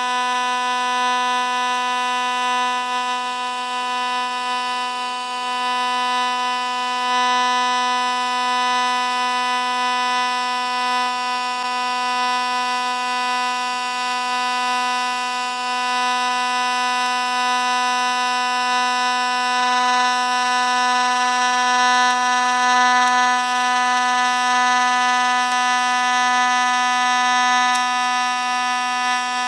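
TIG welding arc on cast bronze, with filler rod being fed in: a steady buzz held on one pitch.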